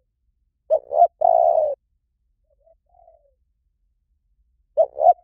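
Spotted dove cooing. A loud three-part coo, two short notes then a longer held one, comes about a second in and starts again near the end, with a soft short phrase between.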